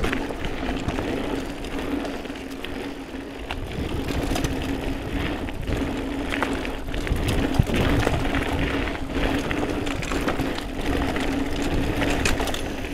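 Mountain bike rolling fast down a dirt singletrack: tyre rumble with scattered clicks and rattles from the bike, and at times the steady buzz of the Hope Pro 4 rear freehub while coasting.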